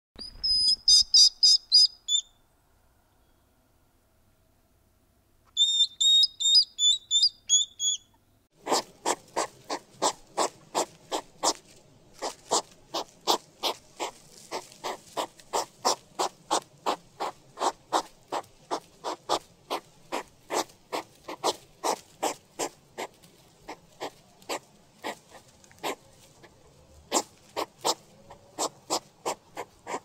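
A hedgehog crying: two bursts of high-pitched squeaking, each about two seconds long, a few seconds apart. From about nine seconds in, a hedgehog makes a fast, regular train of short sharp sounds, about three a second, some louder than others.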